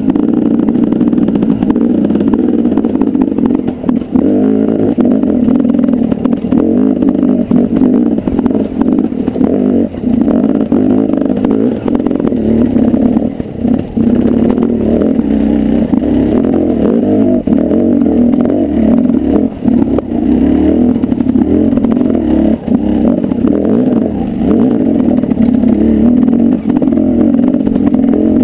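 Dirt bike engine running hard up and down in pitch as the throttle is worked, with frequent brief drops where the throttle is cut. Short knocks and clatter sound through it as the bike rides over rocky ground.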